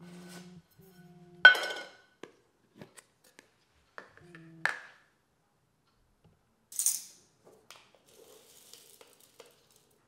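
Tight-fitting lid of a metal tea canister sliding off with a low hum, then coming free with a ringing metallic clink, twice. A short hiss near the middle, then faint rustling.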